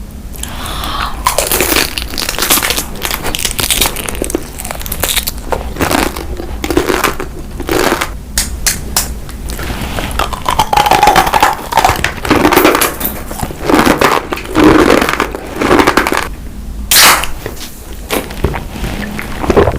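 Close-up eating sounds: irregular crunching as crisp food is bitten and chewed.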